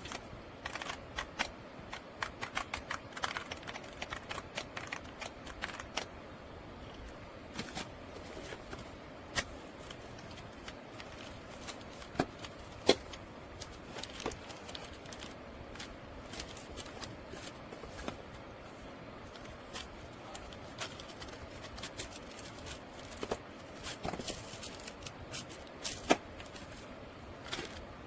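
Irregular small clicks and taps on a YUNZII C75 mechanical keyboard. They come in quick clusters in the first six seconds and are sparser after, with a few louder single clicks.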